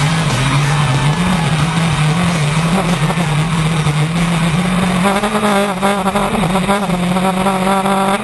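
Engine of an off-road vehicle under way on sand, its pitch rising and falling with the throttle and running harder in the second half.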